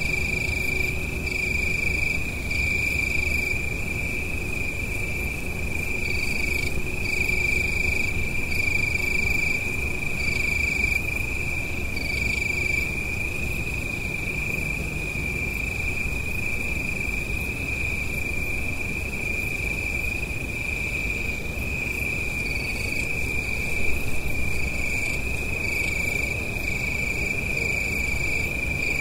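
Night countryside ambience: insects trilling in one steady, unbroken high tone, with more insects chirping on and off in short, higher-pitched pulses. Under them runs a low, steady rumble of distant road traffic.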